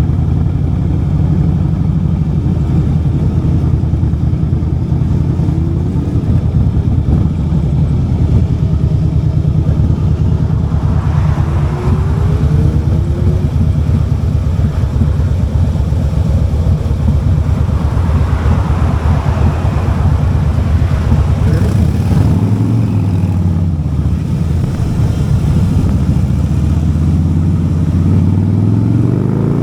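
Harley-Davidson motorcycle's V-twin engine running under way on the road. About two-thirds of the way in its note drops, then climbs steadily towards the end as the bike accelerates.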